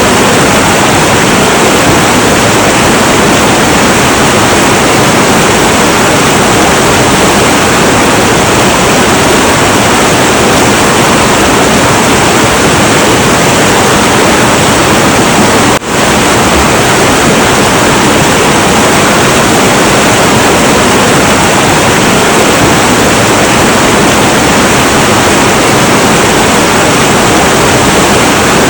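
Heavy, turbulent river water rushing in a loud, steady roar, with one brief dip in level just past halfway.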